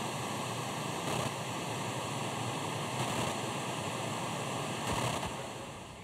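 Analog television static: a steady white-noise hiss that fades down in the last second.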